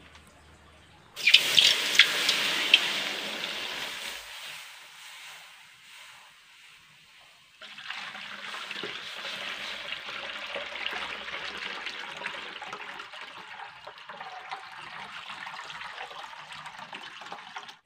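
Coconut milk being poured into a metal wok. One pour starts suddenly about a second in and tapers off, and a second, steady pour begins a little before halfway and runs on.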